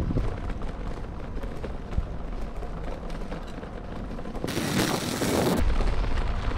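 Wind buffeting a handlebar-mounted GoPro Hero 8's microphone, over the uneven low rumble of a bicycle rolling across cobblestones. A louder hiss comes in about four and a half seconds in and lasts about a second.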